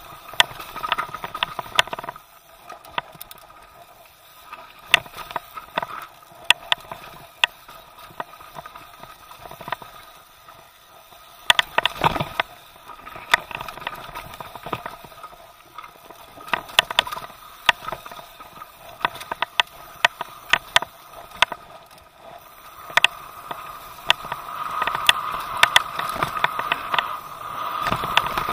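Downhill mountain bike descending a rough dirt trail at speed: a running clatter of sharp knocks from the chain and frame over rocks and roots, over a rushing tyre noise that grows louder near the end.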